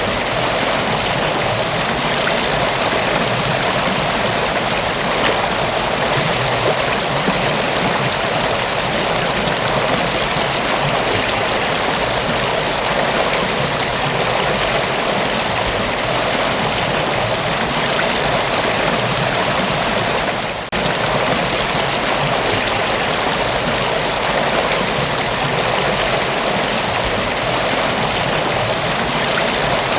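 Mountain waterfall: water falling and rushing in a steady, dense wash, with one very brief dip in level about two-thirds of the way through.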